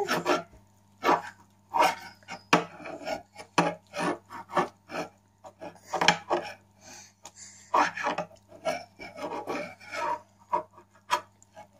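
Close-up eating sounds of boiled artichoke: chewing, and teeth scraping the flesh off the leaves, with quick clicks and knocks of dishes throughout.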